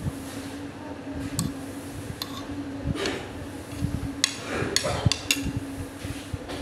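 A metal spoon clinking and scraping against a plate while eating, with scattered light clicks and a run of sharper, ringing clinks about four seconds in, along with faint mouth and eating sounds. A steady low hum runs underneath.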